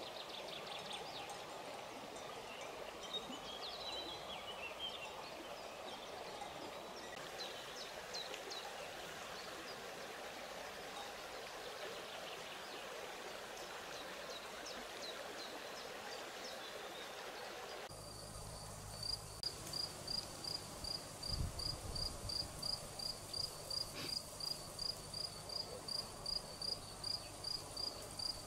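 Outdoor field ambience: a steady rushing background with scattered short high chirps. About two-thirds of the way in it switches abruptly to an insect chirping in a regular pulse, about twice a second, over a faint low hum.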